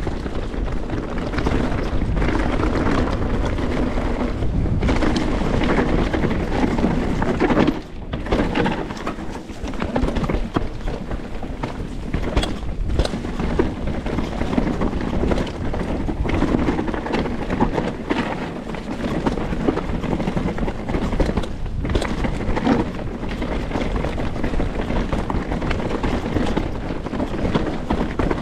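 Canyon Strive enduro mountain bike ridden fast down a rough trail: a continuous rumble of tyres over dirt and rock, broken by frequent sharp knocks and rattles from the bike over bumps. The rumble drops away briefly about eight seconds in.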